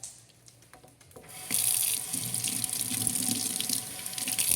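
A water tap turned on about a second in, running steadily in a strong rushing stream.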